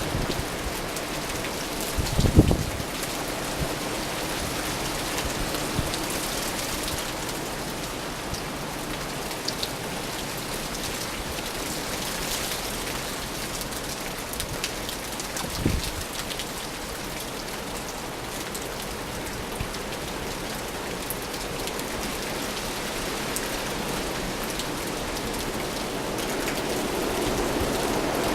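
Steady rain falling in a winter coastal storm, a continuous even hiss. Two brief low thumps break through about two seconds and sixteen seconds in.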